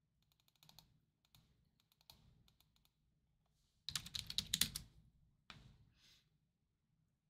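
Faint typing on a keyboard, in short runs of quick keystrokes, with a louder flurry about four seconds in.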